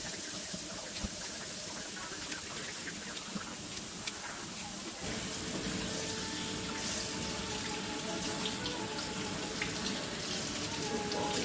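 Steady rush of water in a kitchen, a little louder and fuller from about five seconds in, with faint steady tones over it.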